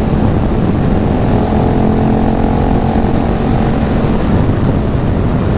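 Sport motorcycle engine running at a steady high speed under heavy wind rumble on a helmet microphone; the engine note fades about four seconds in.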